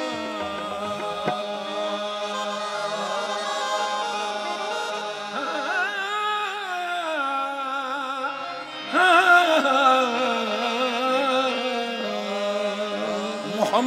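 Qawwali: a male voice sings a long melismatic line over a sustained harmonium drone, growing louder about nine seconds in.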